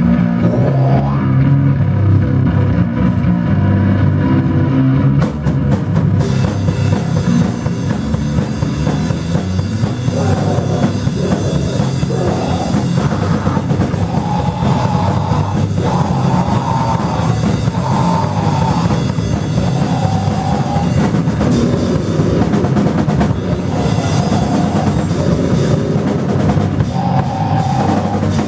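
Live rock band playing loud noise rock, with a drum kit pounding throughout under dense distorted sound. About six seconds in the sound grows fuller and brighter, and in the second half a high held note comes back again and again.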